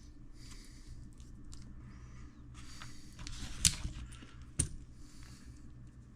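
Small hand-handling noises while working on an RC crawler's open differential: a few soft rustles, light ticks and two sharp clicks of small parts and tools, over a low steady hum.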